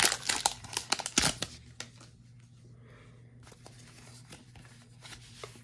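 Foil Pokémon booster-pack wrapper crinkling and tearing open, loud for about the first second and a half, then only faint rustles and light ticks as the cards are handled.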